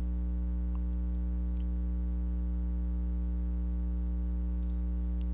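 Steady mains hum with a buzzy series of overtones, unchanging in pitch and level.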